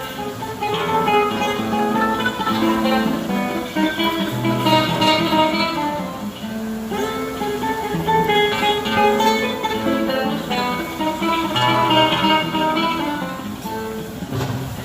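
A busker's guitar played solo: a picked melody of separate notes over bass notes.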